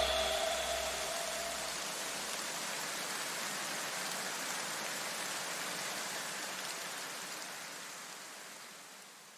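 Even, rain-like hiss of noise in the soundtrack, fading slowly and dying away near the end, with a faint low rumble dying out in the first two or three seconds.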